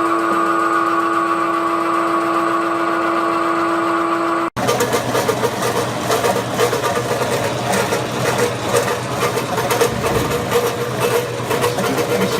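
Industrial vegetable dicing machine running, first with a steady motor hum. It cuts off abruptly about four and a half seconds in, and a rougher machine sound with irregular clattering takes over.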